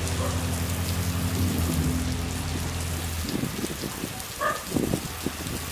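Heavy rain falling on trees and fields, a steady hiss. Under it is a low, steady engine hum that cuts off suddenly about three seconds in.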